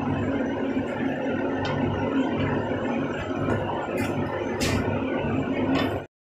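A steady low mechanical hum, with a few faint clicks, that cuts off suddenly about six seconds in.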